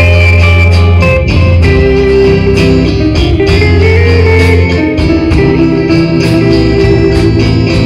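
Live band playing an instrumental, with electric guitar to the fore in long held notes over bass and a second guitar.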